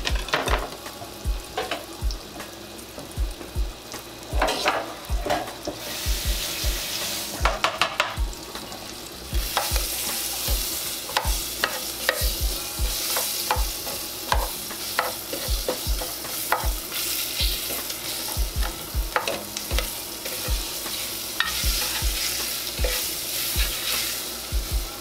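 Sliced onion sizzling in hot leftover frying grease and drippings in a saucepan as it is stirred, with many small knocks against the pan. The sizzle grows louder about ten seconds in.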